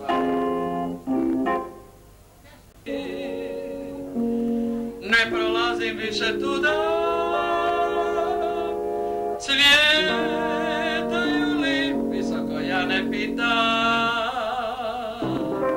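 Electronic keyboard playing held chords, with a short pause about two seconds in. From about five seconds in, a voice sings along in long held notes with wide vibrato.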